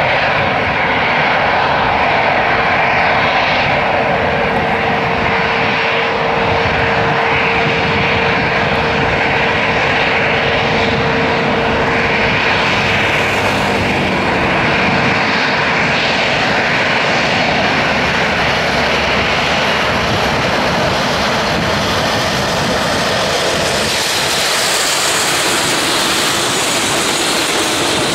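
Airbus A318's twin CFM56 turbofan engines running at taxi power as the jet taxis past: a steady jet roar carrying a held whining tone that fades out about halfway through. A higher-pitched whine grows near the end as the aircraft draws alongside.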